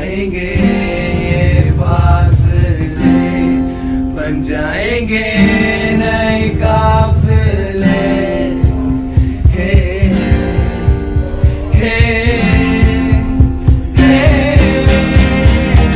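A song with a voice singing a long, wavering melody over guitar accompaniment. About halfway through, a steady beat comes in.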